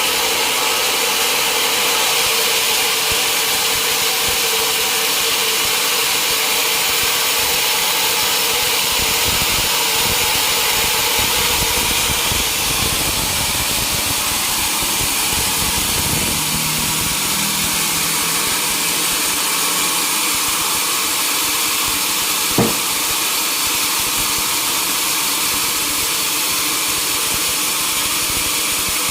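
Sawmill machinery running steadily, a continuous mechanical drone with a whining high edge. A single sharp knock sounds about 22 seconds in.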